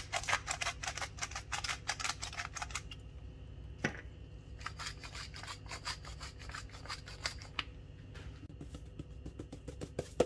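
A hand-held wooden spice grinder being twisted over a tray of raw beef steaks: a fast, rasping run of clicks, then a short pause, a second long run, and a few scattered clicks near the end.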